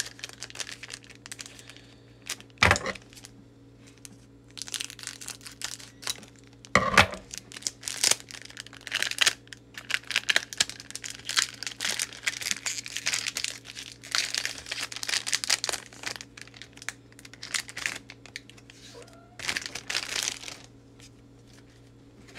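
Foil booster-pack wrapper crinkling and tearing, with trading cards being flipped through by hand in a run of small clicks and rustles. Two brief louder knocks come about three and seven seconds in.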